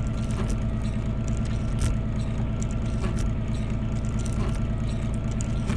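A vehicle engine running steadily at low speed, with a few faint knocks.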